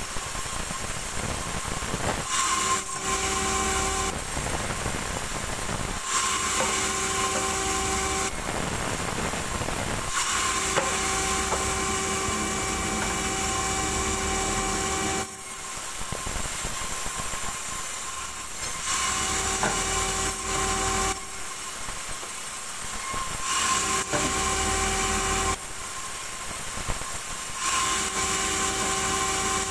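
Band sawmill running while small logs are sawn into boards: a steady machine hum with a whining blade tone and hiss. The cutting noise drops and returns every few seconds as each pass through the log starts and ends.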